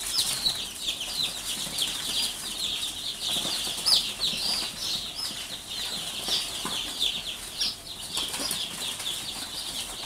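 Day-old chicks peeping continuously, many short high falling peeps overlapping several times a second.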